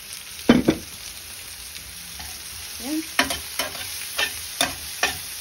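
Metal spatula stirring cauliflower in a frying pan of hot oil, over a steady sizzle. Two loud clatters of pan on pan about half a second in, then from about three seconds in the spatula knocks against the pan around twice a second.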